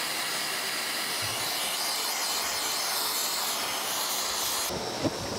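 Gas torch flame hissing steadily as it preheats a bearing shell before babbitt is poured; the hiss falls away a little near the end.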